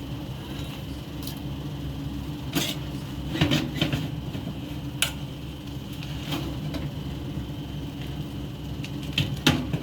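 Turbo broiler's convection fan running with a steady hum. Several sharp clinks of kitchenware are scattered through, loudest about three and a half seconds in and again near the end.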